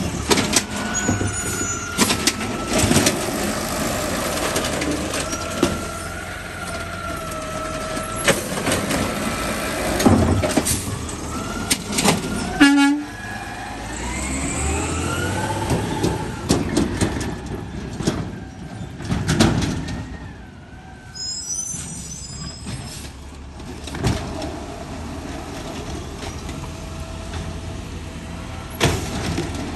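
Automated side-loader garbage truck working at the curb: a steady hydraulic whine from the lifting arm and repeated bangs of carts being dumped and set down, then the truck's engine revving up as it pulls away.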